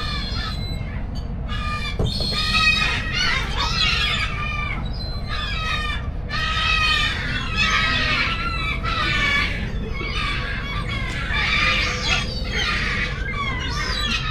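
Birds calling in a long run of short, high-pitched squawking calls, several a second, over a steady low rumble.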